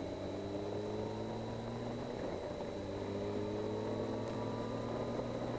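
Yamaha FJR 1300's inline-four engine pulling under acceleration at highway speed, its pitch rising slowly as it gathers speed, with wind rushing over the microphone.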